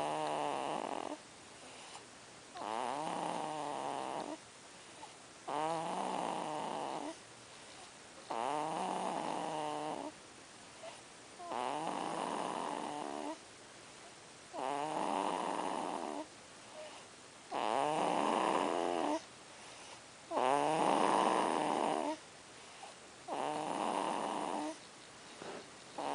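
A three-month-old baby girl snoring loudly and evenly: about nine snores, one roughly every three seconds, each lasting about a second and a half.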